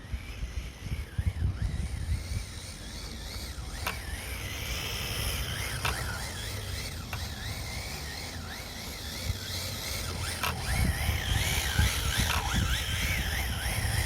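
Rebuilt RC car being driven, giving a high-pitched whine that rises and falls again and again with the throttle, and a few sharp clicks.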